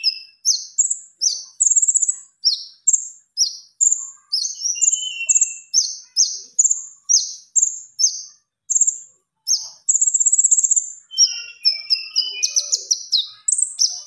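Konin songbird singing in full, continuous song: a rapid run of short, high, mostly falling chirps, several a second, with a longer buzzy trill about ten seconds in and a few lower notes mixed in.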